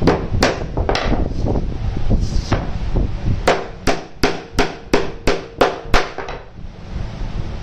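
Hammer driving a nail into plywood. There are two strikes, then after a pause a quick even run of about eight blows at roughly three a second. Each blow has a short metallic ring, and the blows stop about six seconds in.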